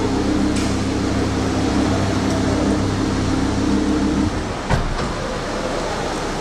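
Lamborghini Gallardo Superleggera's V10 idling steadily, then shut off about four seconds in. Half a second later a car door thuds shut once.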